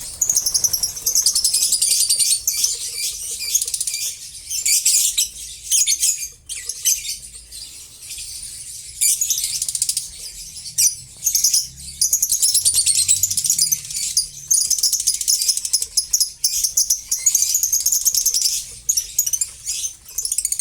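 A flock of lovebirds chattering: a dense, shrill, high-pitched racket of rapid chirps and squeaks that comes in stretches with brief lulls.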